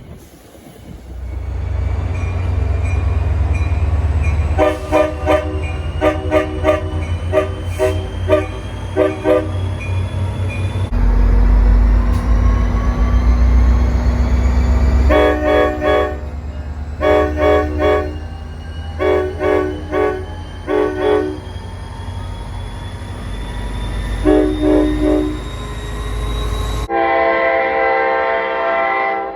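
Train air horns sounding runs of short, rapid blasts over the low rumble of the locomotive, then a horn chord held for about two seconds near the end. The sound changes abruptly twice, as if cut between different trains.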